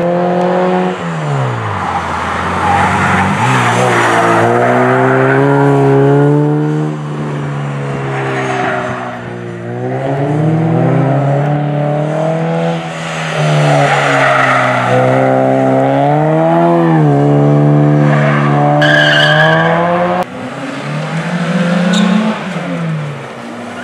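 Sprint race cars driven hard past the roadside, one after another: engines revving up and dropping back several times through gear changes and lifts, with tyres squealing briefly near the end.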